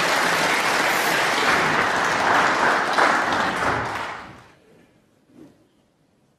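Audience applauding in a snooker arena, dying away about four seconds in to near silence.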